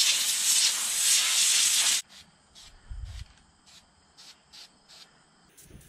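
Compressed air blasting from an air-hose nozzle to blow sawdust off a freshly carved wooden sign: a loud, steady hiss for about two seconds that cuts off sharply. A few faint taps follow.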